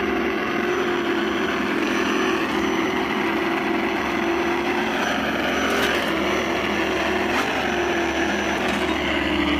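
Simulated engine sound from the Axial Wraith rock crawler's onboard sound unit, a steady engine note whose pitch rises and falls slightly as the truck crawls under throttle. A few light knocks come in the second half.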